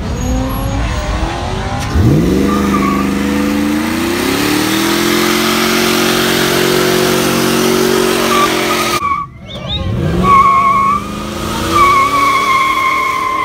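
Pickup truck doing a burnout: about two seconds in, the engine revs up sharply and holds at high revs while the spinning rear tyres squeal and hiss. It breaks off briefly near nine seconds, then revs up again with the tyres squealing.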